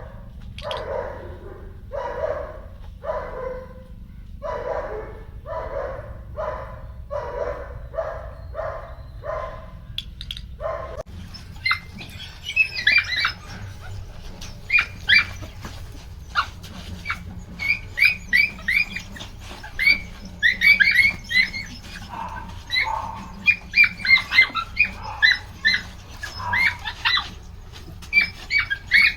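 A dog barking over and over, about two barks a second. After a cut about eleven seconds in, Belgian Malinois puppies give many short, high-pitched yelps in quick clusters.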